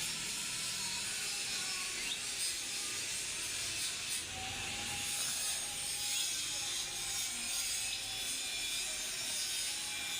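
Steady abrasive rasping of metal bodywork being worked over, as in sanding.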